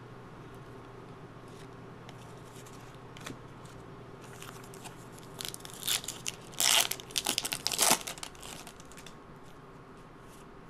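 A trading card pack's plastic wrapper being torn open and crinkled: a cluster of crackling and tearing about five and a half seconds in, lasting some three seconds.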